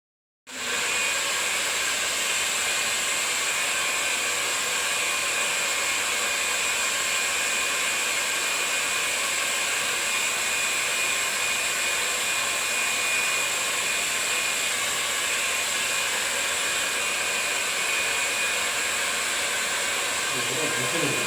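Steady whirr of a small electric fan motor, with a thin high whine, cutting in abruptly about half a second in and running at an even level.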